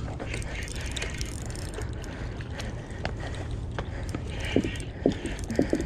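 Steady wind and sea water washing on the rocks, with scattered light clicks and a few sharp knocks in the last second and a half.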